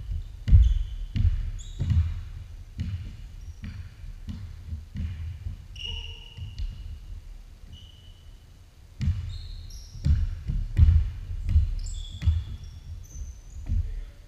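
A basketball bounced on a hardwood gym floor in a large gym, with repeated low thumps about one and a half a second. Short high sneaker squeaks come in between, and the bounces get louder and closer together about nine seconds in.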